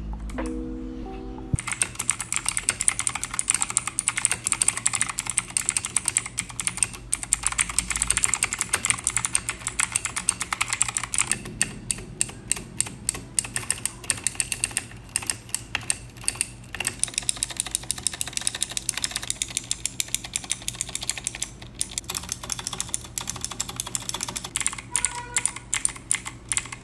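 Machenike K600 full-size mechanical keyboard with blue clicky switches being typed on, a fast, dense stream of key clicks starting about a second and a half in.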